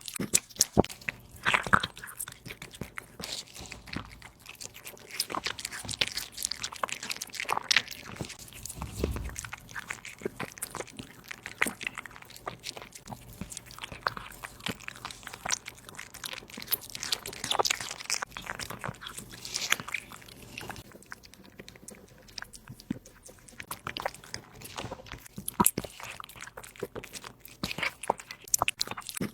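A kitten eating its meal close to the microphone: steady, irregular chewing and biting with wet crunching and smacking clicks.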